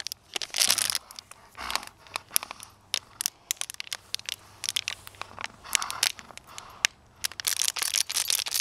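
Empty plastic water bottle crackling and crunching in irregular clusters as a dog bites and tugs at it.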